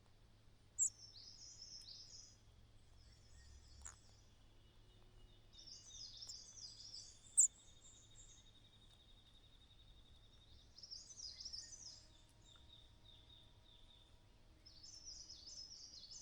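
Small birds singing short high warbling phrases about every four seconds, with two sharp loud chirps, one about a second in and one about seven seconds in, over a steady thin high trill.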